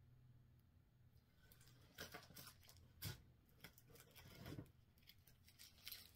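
Faint rustling and clicking of paper and plastic-sleeved pattern leaflets being handled in a cardboard box. It starts about two seconds in, with a sharper click about three seconds in.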